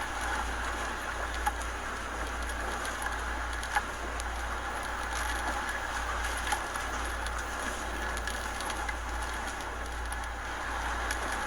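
Steady rushing of hurricane wind and driving rain over a constant low rumble, with a few sharp ticks.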